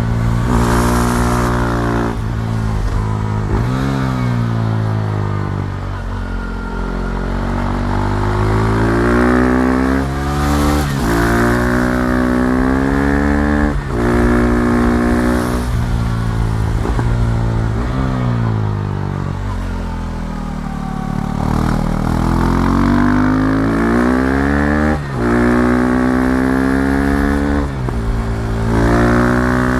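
KTM Duke 390's single-cylinder engine accelerating through the gears, its pitch climbing and dropping back at each upshift. Around the middle it winds down for a while, then pulls away again with several more shifts.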